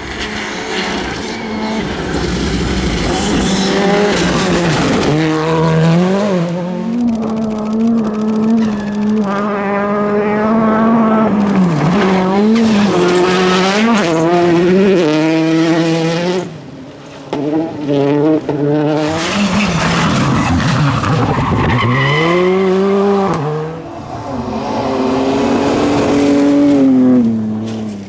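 Rally car engines at full throttle, revving up and dropping back with each gear change as the cars pass, with tyre noise on the stage surface. The sound dips briefly twice, about two-thirds of the way through and again near the end.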